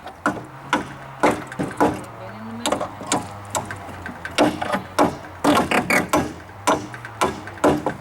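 Hammer striking wood and nails in irregular blows, about two a second, over a steady low hum.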